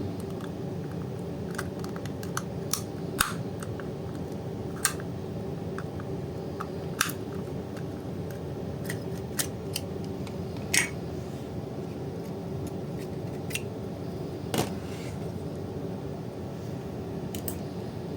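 Scattered sharp clicks and taps of tools and small parts handled on a plastic charger casing, irregularly spaced, over a steady low hum.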